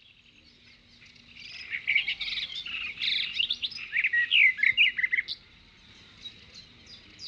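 Many birds chirping and trilling together, rising in during the first couple of seconds, densest and loudest in the middle, then thinning to scattered quieter chirps.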